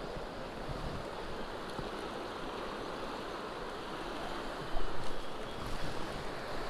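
Small stream water rushing steadily over rocks, with a few louder bumps close to the microphone about five seconds in.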